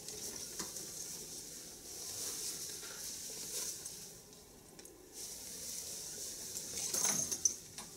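Rustling of a polyester motorcycle jacket's fabric as it is lifted off a clothes rack on its hanger, held up and handled, with a few light clicks and a louder bout of handling near the end.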